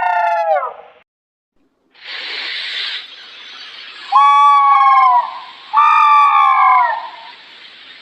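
Baby spinosaurus sound effect: high, whining creature calls, each about a second long with the pitch falling away at the end. One call trails off at the start; after a short gap and a burst of hiss, two more calls follow over a steady hiss.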